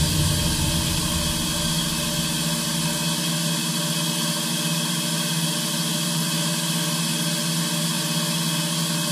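DMG Mori NTX1000 CNC turn-mill running at rest, a steady machine hum with an even hiss. A low rumble dies away in the first few seconds.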